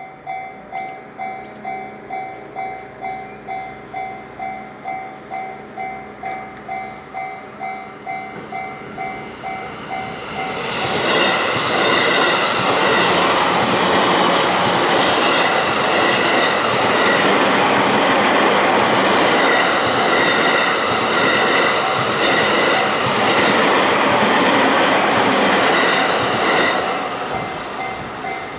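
Japanese level-crossing warning bell ringing in an even two-tone pulse, about two strokes a second. About ten seconds in, a train passes over the crossing for some sixteen seconds, loud enough to bury the bell, and the bell rings clear again near the end.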